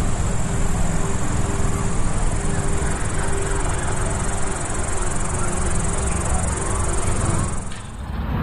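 Insects buzzing steadily in a constant high drone over a heavy low rumble, cutting off abruptly near the end.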